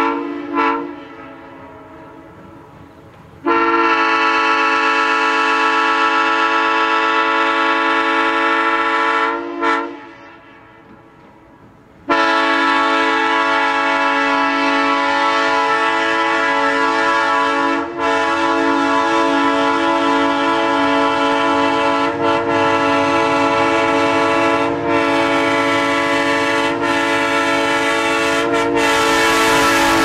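Diesel locomotive's multi-chime air horn blowing the grade-crossing signal: a long blast from about three to nine seconds in, a short toot, then a long blast from about twelve seconds held as the train draws near. The engine's rumble grows under it, and the horn's pitch drops as the locomotive passes at the end.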